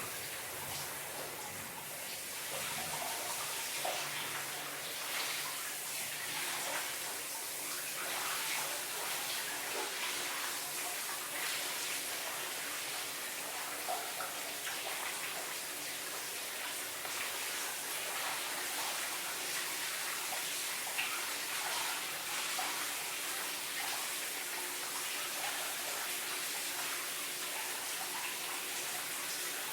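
Shower water spraying steadily, with scattered small splashes and spatters as it hits a body and the shower floor.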